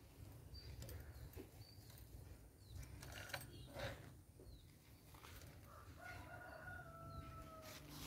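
A rooster crows faintly, one long drawn-out call starting about six seconds in and sinking slightly at the end. Small birds chirp briefly now and then, and a few sharp rustling clicks come a few seconds in.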